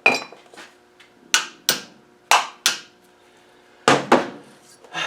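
Sharp metallic taps during work on the valve gear of a dismantled V6 cylinder head: about seven strikes, most coming in pairs about a third of a second apart, each ringing briefly.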